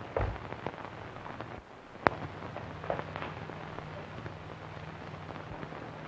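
Crackle and hiss of a worn early-1930s film soundtrack, with a few soft knocks near the start and a single sharp click about two seconds in, then a steady low hum.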